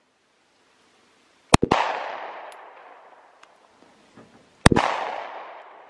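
Two 9mm shots from a Glock 43 subcompact pistol, about three seconds apart, each followed by a long echo that dies away over about a second.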